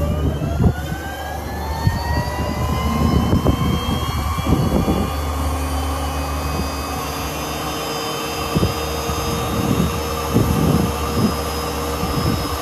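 Williams FJ33 turbofan of a Cirrus SF-50 Vision Jet being dry-motored on its starter with no fuel, as fresh water is sprayed into the intake for a compressor rinse. Its whine is still rising in pitch at the start, levels off after a second or two and then holds steady over a low hum, with a few scattered knocks.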